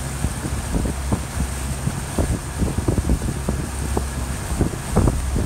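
Outboard motor of a small boat running at speed, a steady low hum under wind noise, with frequent irregular short thumps.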